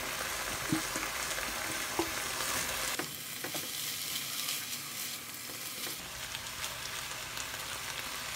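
Chicken strips and freshly added chopped onion sizzling steadily in a hot nonstick frying pan, the chicken's released water almost cooked off. A silicone spatula stirs through them, with a few light taps and scrapes against the pan.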